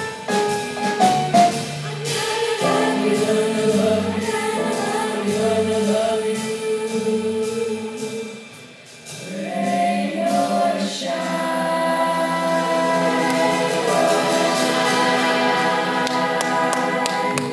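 Youth jazz choir singing through microphones in close harmony, holding long chords. The sound dips briefly about nine seconds in, then the voices settle into one long held closing chord.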